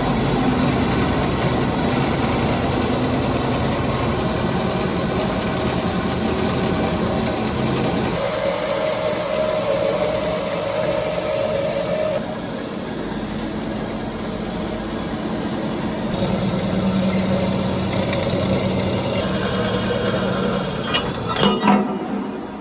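Industrial beam band sawing machine running, a steady mechanical drone whose tone shifts twice partway through. A few sharp knocks come near the end, just before it cuts off.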